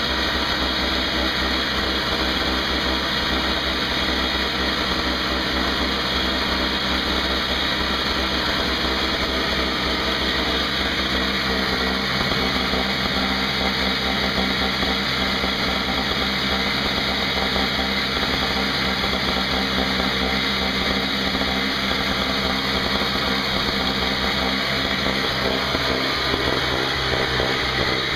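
Craftsman 5 hp two-stroke snowblower engine running steadily on a test run after its carburetor repair, holding an even speed throughout.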